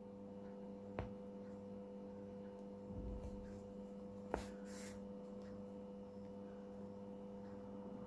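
Steady low electrical hum, with two faint clicks from handling, about a second in and again near the middle.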